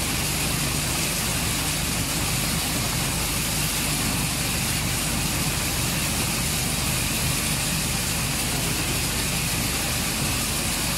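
A motor running steadily: a low, even hum under a constant hiss, with no change in pitch or level.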